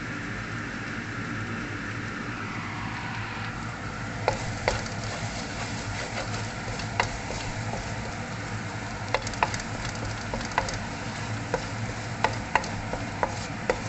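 Curry powder and aromatics frying in oil in a pan with a steady sizzle. From about four seconds in, a cooking utensil clicks and knocks against the pan as it is stirred.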